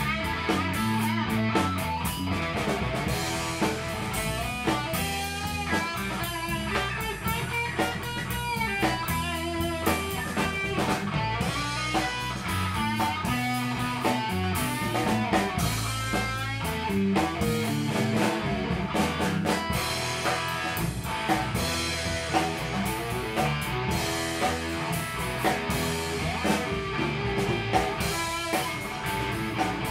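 Live rock band playing an instrumental stretch: electric guitar lines over a drum kit, with no singing.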